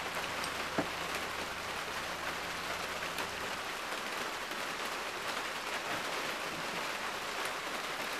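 Steady rain falling, an even hiss of drops with no break, and one faint click about a second in.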